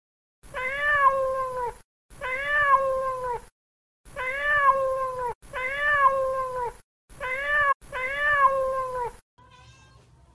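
A kitten's meow, the same call repeated six times in quick succession with clean, abrupt starts and stops, as an edited loop. Each call lasts about a second and a half and rises then falls in pitch; the fifth is cut short.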